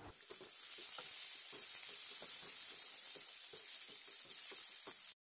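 Boiled potatoes frying in hot oil in a metal kadai, a steady sizzle, while a wooden spatula stirs them with many small irregular taps and scrapes against the pan. The sound cuts off suddenly just before the end.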